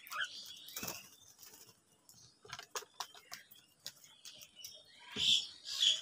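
A flock of house crows at a feeding tub: wings flapping about a second in, a run of short sharp clicks from beaks pecking in the middle, then harsh cawing near the end.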